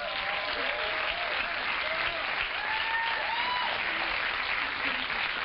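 Studio audience applauding, with a few voices heard over it.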